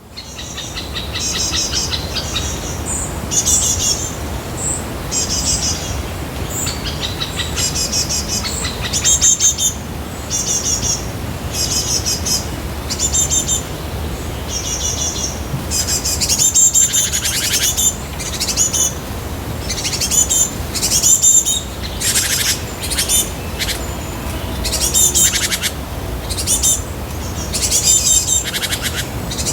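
Songbirds chirping: short, high-pitched trilled phrases repeated about every second, over a steady low background hum.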